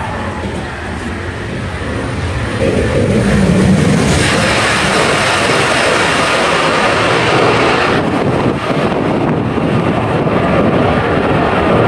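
A Whoosh Jakarta–Bandung high-speed electric train passing the tunnel mouth at speed. A rush of air and wheels builds over a couple of seconds and stays loud for about four seconds as the train goes by. The hiss then cuts off suddenly about eight seconds in, leaving a low rumble of wind buffeting in the train's wake.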